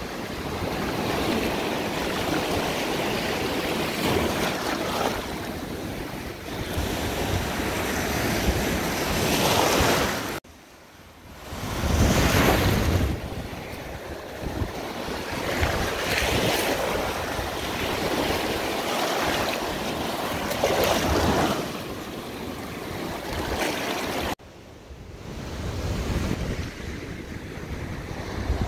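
Gulf of Mexico surf washing up on the beach, swelling and easing, with wind buffeting the microphone. Twice the sound drops away sharply and then comes back.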